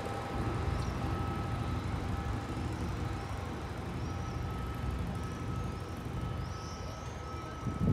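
Low, steady rumble of a yellow diesel railcar pulling away along the track, slowly fading as it recedes, mixed with street traffic. A few faint high chirps come in the second half, and a short thump lands right at the end.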